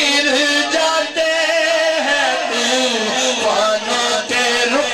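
A man singing a devotional chant into a microphone, with long held, wavering notes.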